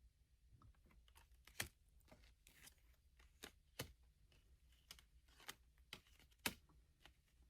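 Near silence broken by faint scattered clicks and light taps, three of them sharper, like small objects or cards being handled on a table.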